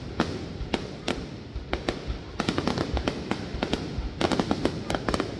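New Year's Eve fireworks going off: an irregular barrage of sharp bangs and crackles over a constant low rumble, growing denser about halfway through.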